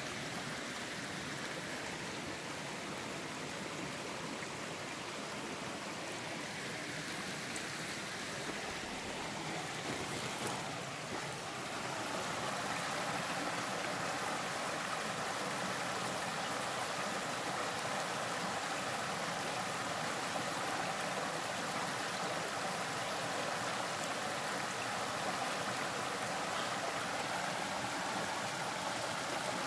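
Small forest creek rushing and burbling over rocks: a steady, even wash of water noise that grows a little louder partway through.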